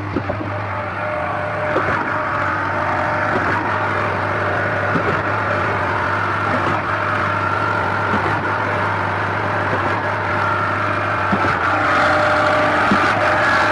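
Concrete pump running: a steady engine drone with a light knock about every second and a half, getting a little louder near the end.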